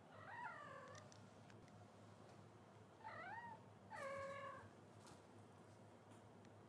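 Munchkin kitten mewing three times with a thin, high voice: one falling mew near the start, then a rise-and-fall mew about three seconds in and a slightly longer, steadier one just after.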